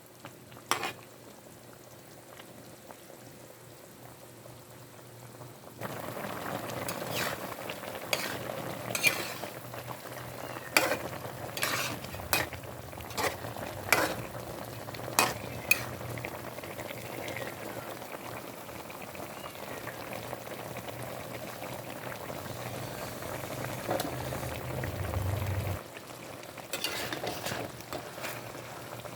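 Chicken mechado cooking in a pan, sizzling and bubbling. A spoon stirs and knocks against the pan in short sharp clicks. The sizzle grows louder about six seconds in and falls back shortly before the end.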